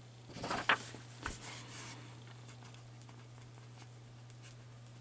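Light handling of a paper sheet and pen: a brief rustle and a single click in the first second and a half, then only scattered faint ticks over a steady low electrical hum.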